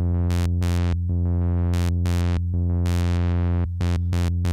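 Behringer DeepMind 12 synthesizer holding a low sawtooth note. Its filter jumps to a new random brightness in tempo-synced steps, a sample-and-hold LFO on the filter cutoff clocked in eighth notes.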